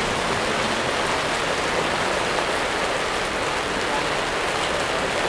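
Heavy rain falling steadily on a tent roof, a continuous even hiss.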